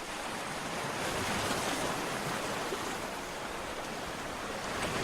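Sea waves washing onto a beach: a steady hiss of surf that swells a little about a second in.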